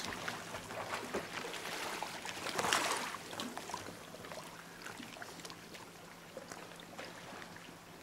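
Sea water lapping and sloshing, with a louder splash about three seconds in, then quieter lapping.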